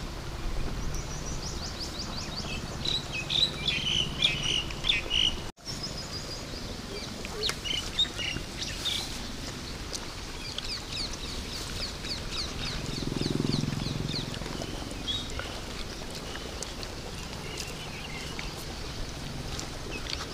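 Small birds chirping in quick runs of high, falling notes, with a denser burst of calls about four seconds in. The sound drops out for an instant a little before the middle.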